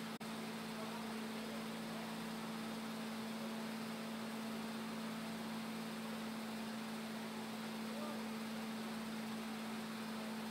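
Steady low electrical hum over a faint even hiss, with a momentary dropout just after the start.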